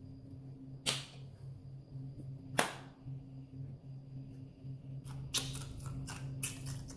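Several short sharp clicks over a steady low hum: one about a second in, the loudest about two and a half seconds in, and a quick cluster near the end.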